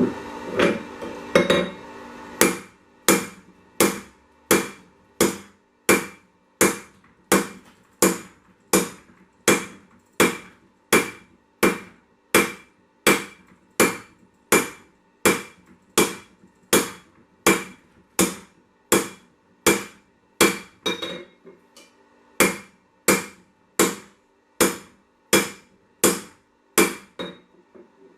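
Hand hammer drawing out hot 1085 carbon steel on a 55-pound mild-steel anvil: a few quick blows, then steady, evenly spaced strikes about one every three-quarters of a second, with a short break in the rhythm partway through.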